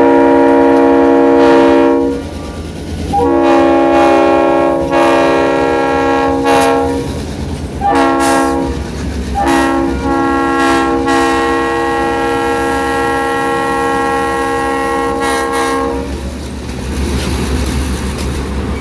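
Locomotive's five-chime Nathan AirChime RS5T air horn sounding a long, long, short, long crossing signal, the second long blast quilled so its tone shifts partway through. The train's rumble and wheel clatter on the rails run underneath and carry on after the horn stops, near the end.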